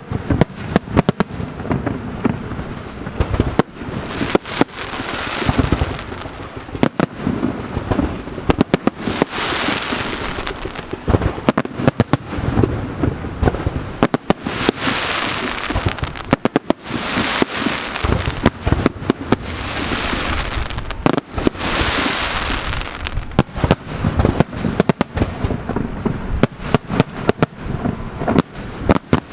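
Aerial fireworks display: a continuous barrage of sharp bangs from bursting shells, with repeated crackling bursts lasting a second or two each and a low rumble underneath.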